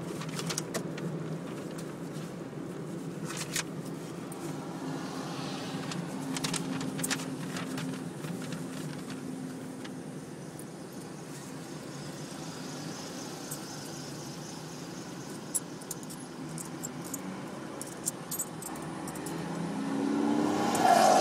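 Suzuki Celerio's cabin noise while driving: a steady engine and road rumble with a few light clicks and rattles scattered through it. It grows louder near the end.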